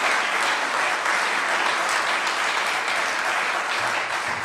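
Audience applauding: a steady, dense clapping of many hands that eases slightly near the end.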